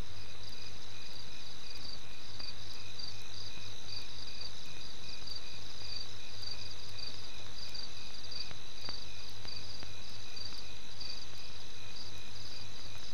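Crickets chirping steadily, each call repeating in an even rhythm, over a low steady hum.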